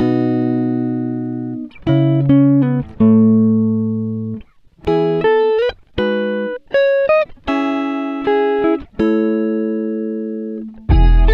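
Instrumental background music: plucked guitar notes and chords, each struck and left to ring and fade, with a brief pause about four and a half seconds in.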